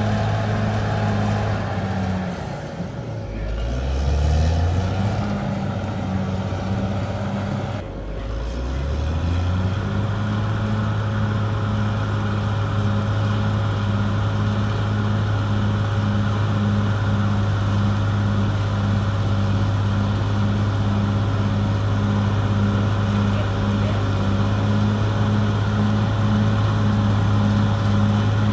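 Caterpillar D6R XL bulldozer's diesel engine running steadily. Twice, about two and eight seconds in, its pitch drops and climbs back up.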